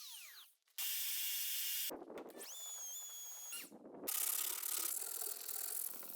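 A quick succession of woodworking power-tool sounds in short cuts: a motor winding down with a falling whine, a second of steady cutting noise, a motor whining up to speed, holding and spinning down, then steady cutting or sanding noise.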